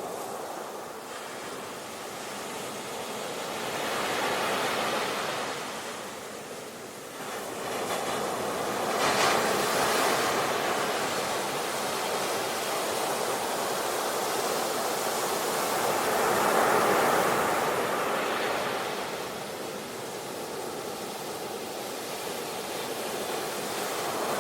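Ocean surf: waves breaking and washing back, the rush swelling and ebbing every few seconds.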